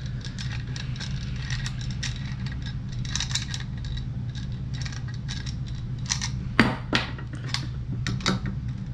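Hand tools clinking and clicking against metal pipe fittings as the fittings are tightened: a run of small irregular clinks, with two louder knocks about two-thirds of the way through, over a steady low hum.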